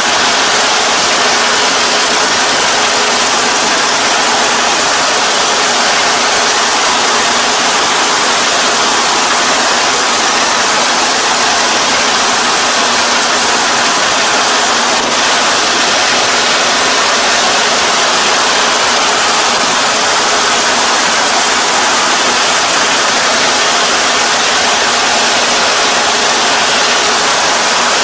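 Combine harvester running steadily: a loud, even hiss with a faint steady engine hum underneath.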